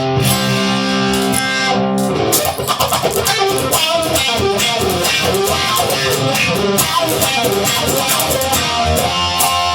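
Instrumental break of a blues song: electric guitar over bass, with held chords for the first two seconds, a run of quick notes in the middle, and held chords again near the end.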